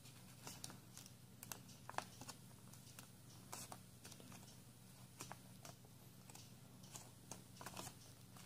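Faint, scattered crinkles and ticks of a square of origami paper being folded and creased by hand.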